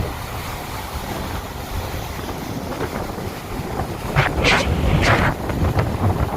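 Sea waves breaking on a sandy beach under strong wind buffeting the microphone with a steady low rumble; about four seconds in, a wave crashes and washes up in a loud hiss.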